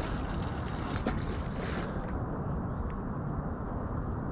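A 60 gram feeder landing in the river with a heavy splash about a second in, like something falling in rather than a little plop, over a steady rumble of wind on the microphone.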